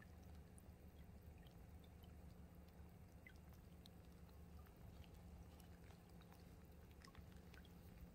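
Near silence: a faint trickle of shallow stream water over a steady low hum, with scattered tiny ticks.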